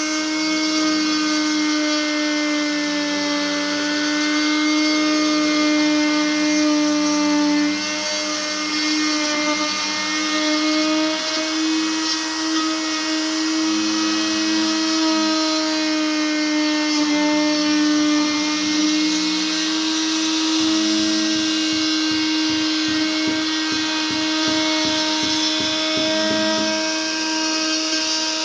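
Electric power tool running with a steady high whine while carving wood, its pitch dipping slightly now and then as it meets the wood. A rapid low chatter joins in for several seconds in the last third.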